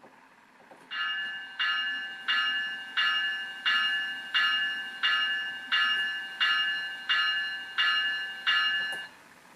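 Locomotive bell sound effect from an ESU LokSound Select decoder in an HO scale model cab car, played through a small speaker: twelve even ringing strikes about 0.7 s apart, starting about a second in and stopping near the end.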